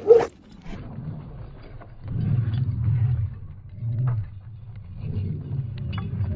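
Several dogs running over dirt and gravel straight at a camera lying on the ground: uneven low rumbling of paws hitting the ground close to the microphone, in waves, with scattered clicks of kicked gravel. Two short, loud calls come right at the start.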